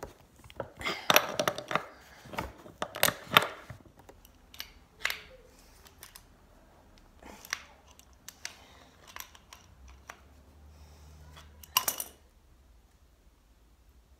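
Metal clinks and clicks of an adjustable wrench working the threaded hose fittings of a Wagner airless paint sprayer. A quick cluster of clicks comes in the first few seconds, then scattered single clicks, with one louder knock near the end.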